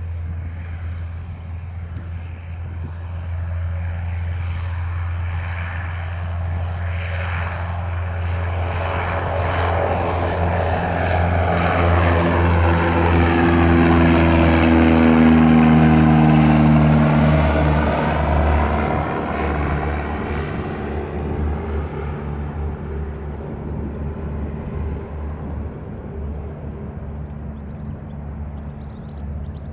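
Single-engine Cessna 172 piston engine and propeller at takeoff power, growing louder as the plane rolls and lifts off. It is loudest as it passes about halfway through, with the pitch dropping as it goes by, then fades as it climbs away.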